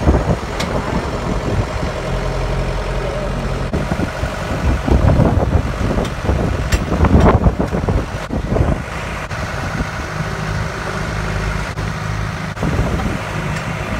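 Farm tractor engine running steadily as the tractor drives along a gravel lane, with a low, even drone and louder rumbling for a few seconds midway.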